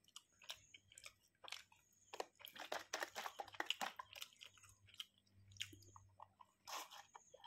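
Faint close-up chewing: wet mouth clicks and smacks as the last mouthful of a sausage burrito is chewed, busiest in the first few seconds and thinning out after.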